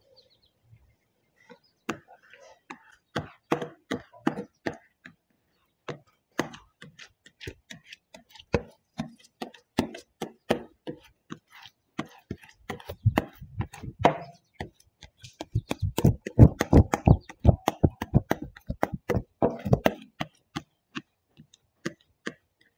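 Irregular clicks, taps and scrapes from a squeegee and paint protection film being worked on a wet bench top, thickening into a dense clatter about two-thirds of the way through.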